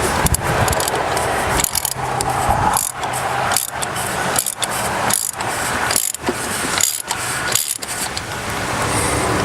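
Socket ratchet clicking in repeated strokes, about one a second, as it unscrews the oil filter housing cap.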